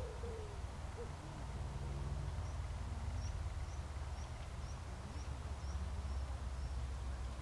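Outdoor ambience under a steady low rumble. A low bird call sounds right at the start, then a run of about eight short high chirps, about two a second, through the middle.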